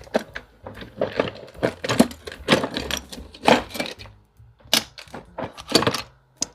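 Small wooden pieces and bits of cork clicking and clattering against each other as a hand rummages through a drawer of craft supplies, in quick irregular knocks.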